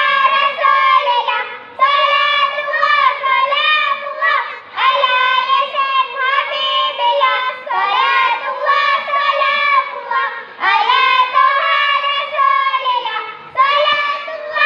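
A group of preschool children chanting a kalam jama'ie (a choral group recitation) in unison. They sing in phrases of about three seconds, with short breaks for breath between them.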